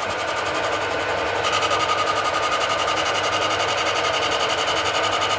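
Tool post grinder on a lathe: its electric motor spinning a grinding stone against a slowly turning hardened steel shaft, a steady whine over a grinding hiss. The whine comes up more strongly about a second and a half in.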